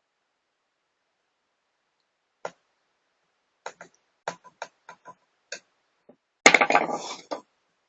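Small laptop-handling sounds: a click, then a string of separate sharp clicks and taps, then a dense clatter lasting about a second near the end, the loudest part.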